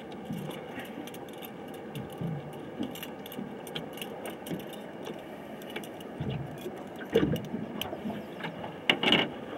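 Small metallic clicks and rattles of fishing gear being handled in a boat, with louder knocks about seven and nine seconds in.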